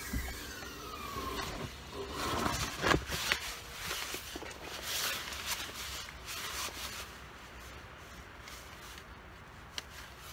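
Rustling and scraping of a jacket and backpack straps as a backpack is shouldered and buckled, with a few knocks; it quietens after about seven seconds. A falling whine trails off in the first second or so.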